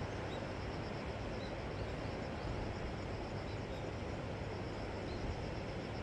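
Steady rush of sea surf washing over rocks below a cliff, even in level throughout. Over it, a few faint short high chirps and a faint, evenly pulsing high trill.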